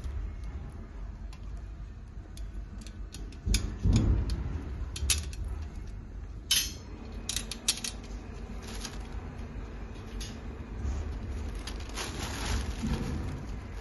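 Gold-plated iron frame panels and small screws being handled: scattered light metal clicks and clinks as the joint between two panels is lined up and screwed, with a dull low thud about three and a half seconds in and a quick run of clicks a little past halfway.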